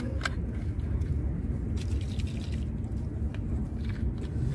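Steady low outdoor rumble with a few light clicks and crackles as a small plastic bottle is handled and its cap twisted.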